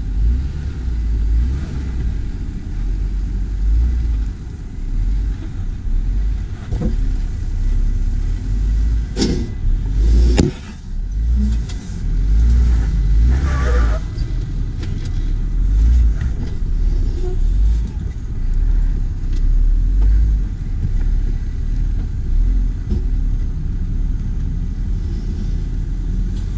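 Jeep Wrangler JL Rubicon running at low speed on an off-road trail, a heavy, uneven low rumble throughout. A few sharp knocks stand out about nine and ten seconds in.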